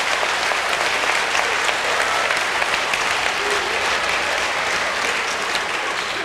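Large audience applauding steadily in response to a joke.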